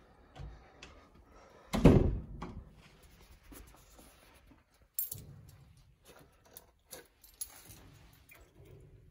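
A bunch of keys jangling in the hand, with one loud thump about two seconds in and a few sharp clicks later on.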